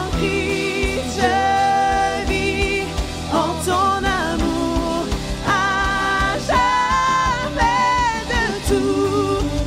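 Christian worship song: a voice sings held, wavering notes over sustained instrumental backing.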